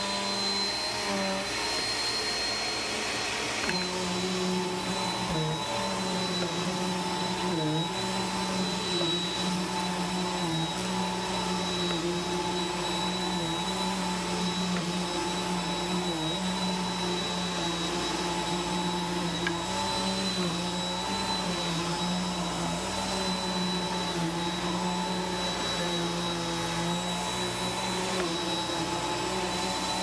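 Upright vacuum cleaner running on carpet: a steady motor hum with a high whine above it, the pitch dipping briefly now and then.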